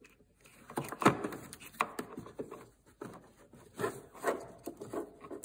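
An LED headlight bulb being worked into a snowmobile's plastic headlight housing by hand: scattered short clicks, knocks and scrapes as the bulb and plastic parts are pushed and turned.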